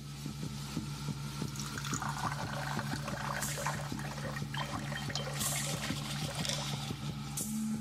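A clear spirit poured in a thin stream into a glass tumbler, a steady splashing trickle as the glass fills, fading in over the first couple of seconds. A steady low hum runs underneath.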